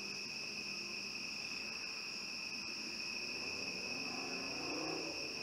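Crickets trilling in a steady, unbroken chorus.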